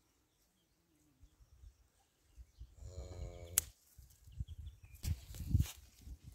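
A goat bleats once, about three seconds in, and a sharp snip of pruning shears cutting a bougainvillea branch follows right after. Near the end comes a burst of rustling and handling noise.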